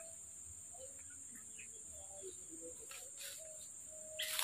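Steady high-pitched drone of forest insects, with a few faint low bird whistles scattered through it; a louder rustle comes near the end.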